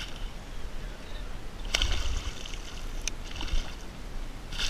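Water sloshing and splashing against a kayak hull, with two short light knocks, one about two seconds in and one near three seconds.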